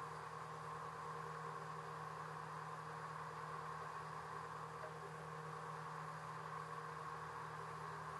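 A faint, steady motor hum with a constant low tone and a higher band above it, unchanging throughout.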